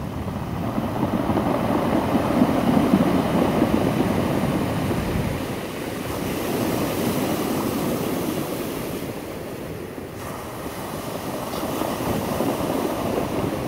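Ocean surf breaking and washing up over a beach of rounded stones, in a steady rushing wash that swells and eases with each wave.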